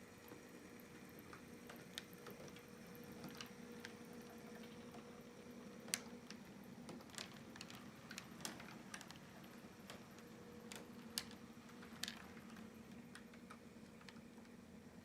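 Faint, irregular clicks and ticks of an HO scale model train rolling over the track's joints and turnouts, the loudest about six seconds in and two more near the end, over a low steady hum.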